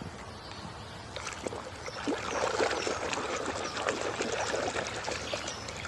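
Water splashing and trickling as a muddy plastic toy is washed, with many small plastic clicks and knocks. Faint for about the first second, then louder.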